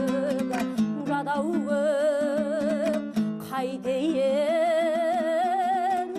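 Kazakh folk song: a woman sings long held notes with wide vibrato over steadily strummed dombra strings, breaking off briefly between two phrases about three seconds in.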